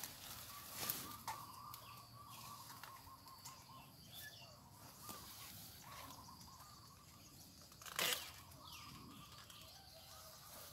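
Faint outdoor ambience with a few short bird chirps and two brief noises, a weak one about a second in and a louder one about eight seconds in.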